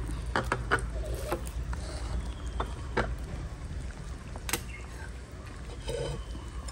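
Soup bubbling in a terracotta clay pot, with scattered light clicks and taps as chopsticks push greens down into the broth.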